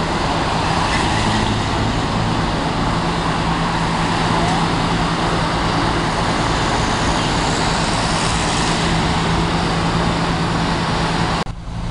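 Steady road traffic and idling vehicle engines, a constant wash of noise over a low engine drone. The sound drops out briefly near the end.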